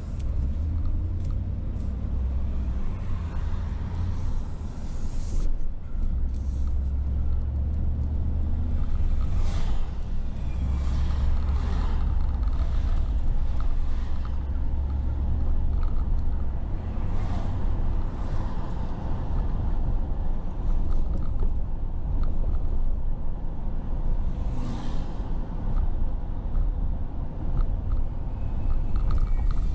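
Car driving along, a steady low rumble of engine and road noise, with a few short swooshes of passing traffic about ten, seventeen and twenty-five seconds in.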